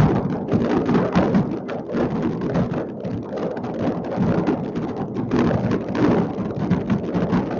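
Hundreds of fireworks going off at once across a city: a dense, unbroken crackle of pops and bangs, with deeper booms among them.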